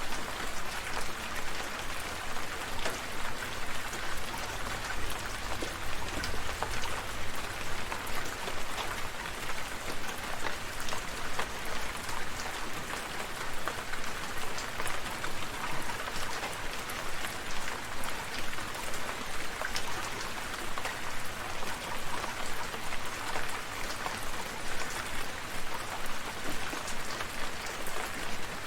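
Steady rain falling, with a dense patter of individual drops striking a surface.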